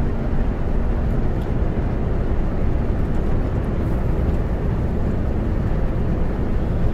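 Steady engine and road noise inside the cab of a semi-truck tractor unit driving without its trailer.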